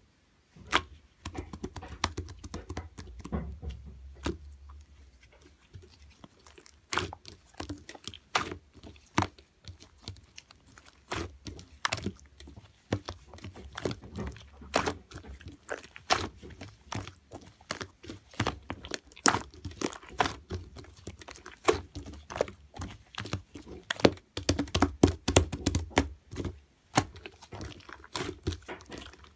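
Close-up irregular crunching and clicking, like chewing something crunchy, with short pauses between bursts.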